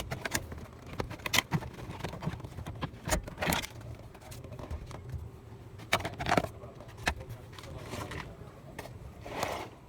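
Scattered sharp clicks and a few longer scrapes from a key being worked in a stuck car ignition lock.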